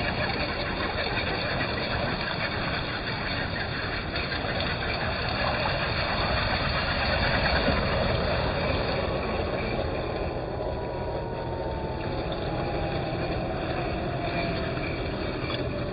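Multi-motor electric drivetrain of a six-wheel-drive RC semi truck running under load, with water splashing as it drives through a shallow creek and up onto gravel. A thin whine falls slowly in pitch over the second half.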